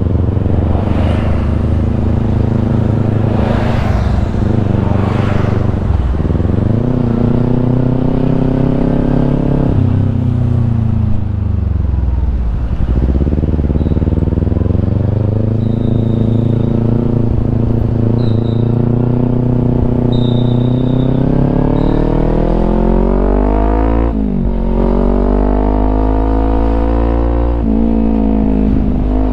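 Kawasaki Ninja 250 engine breathing through a Yoshimura aftermarket exhaust, being ridden and revved: the pitch climbs steadily and drops sharply at each gear change, about four times, with the longest pull in the middle.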